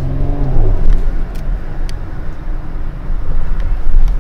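Mercedes-AMG GLE 53 Coupe's turbocharged inline-six engine accelerating, rising in pitch for the first half second, then running on as a loud low rumble with a couple of sharp cracks.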